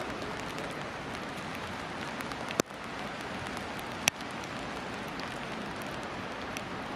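Steady even background hiss with two sharp clicks, the first about two and a half seconds in and the second a second and a half later.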